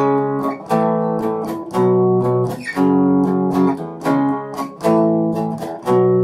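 Semi-hollow electric guitar strumming chords, with a strong chord about once a second and lighter strums between. The last chord, near the end, is left to ring.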